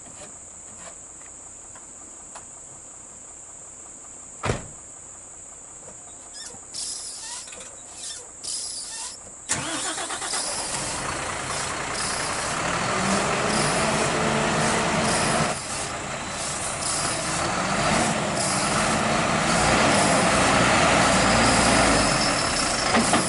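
UD Quester truck's diesel engine revving under load as it pulls through deep mud. The engine comes in suddenly about ten seconds in, and its pitch rises and falls. Before that there is only a quiet, steady high whine and a single knock.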